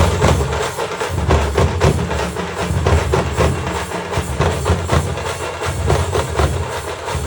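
Loud music driven by fast, continuous drumming, with many rapid strokes.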